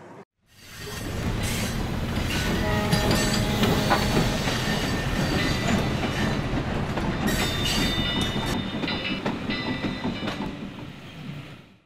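Railway train running, a dense rumbling noise with sharp clicks and some high thin tones from about seven seconds in; it fades in at the start and fades out near the end.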